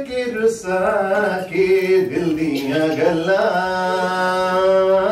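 A man chanting in a sing-song melody, with the line settling into a long held note over the last couple of seconds.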